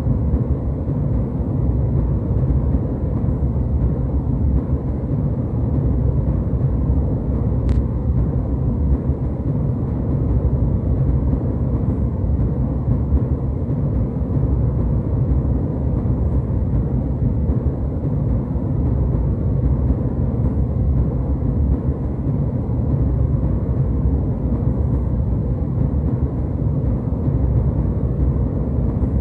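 Steady low rumble of jet airliner cabin noise in flight, an even roar with most of its weight in the bass.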